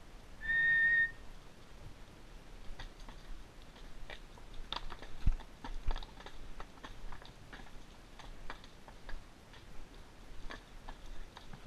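A single short whistle, one steady note lasting under a second, near the start. After it, a shod horse's hooves clack and crunch irregularly on rocky, gravelly ground as it walks.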